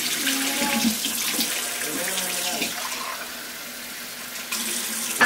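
Hot water running from a kitchen tap in a steady stream. It goes quieter for a moment past the middle and picks up again near the end.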